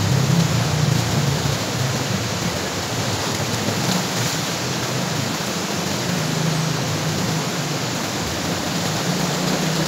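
Shallow stream running steadily over rocks, with splashing and water pouring off as a wet woven sack is dunked and lifted out of the current.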